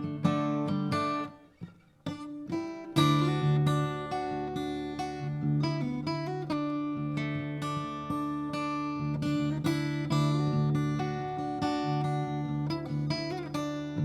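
Solo acoustic guitar playing an instrumental, plucked notes over a sustained low bass line. About a second in it fades to near silence, then picks up again about three seconds in with a strong low note.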